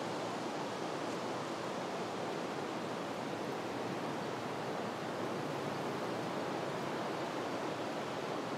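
Steady outdoor background noise: an even hiss with no distinct sounds rising out of it.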